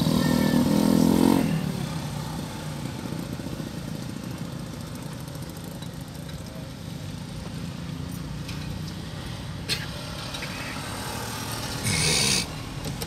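Car driving along a road, heard from inside the cabin: a steady low rumble of engine and tyres, with a short loud hiss near the end.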